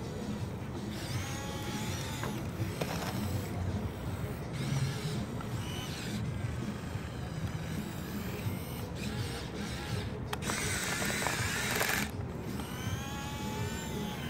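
Radio-controlled model Komatsu PC1250 excavator's small motors and gearboxes whirring and ratcheting steadily as it swings and works its boom and bucket, with a whine that rises and falls at times.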